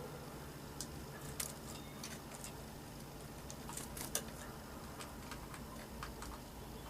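Scattered, irregular sharp clicks and ticks over a low steady hum, two of them louder, about a second and a half and four seconds in.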